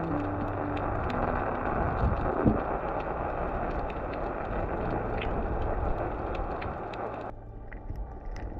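Muffled rushing noise of a camera held underwater, with scattered faint clicks and a soft background music bed of low held notes. The rushing noise cuts off abruptly near the end.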